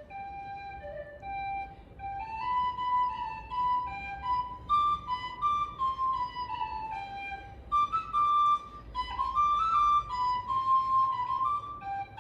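A solo flute-like wind instrument playing a folk melody, one note at a time, with held notes and short stepwise runs.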